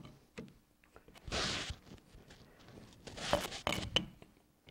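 Chuck key turning the jaw screws of a four-jaw lathe chuck: a few short scraping sounds and sharp clicks of metal on metal, with quiet gaps between.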